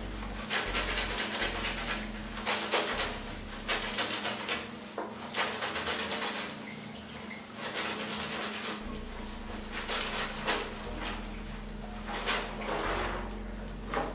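Soapy wet clothes being scrubbed by hand in a basin, with irregular rubbing and swishing strokes about one every half second to a second.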